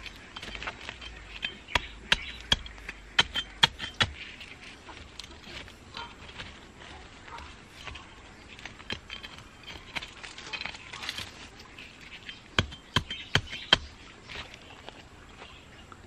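A narrow metal hand trowel stabbing and scraping into dry, clumpy soil. There is a run of sharp clicking strikes about two to four seconds in, a stretch of softer scraping, then another quick run of strikes near the end.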